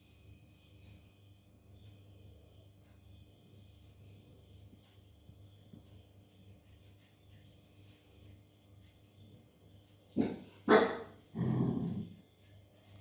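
Dog barking three times near the end, two short sharp barks followed by a longer one, over a steady background of crickets chirping.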